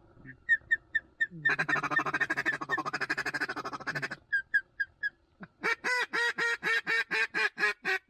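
Mallard duck call being blown: a few short clucks, a long rapid chattering feed call, then a steady series of about a dozen loud quacks, about four a second.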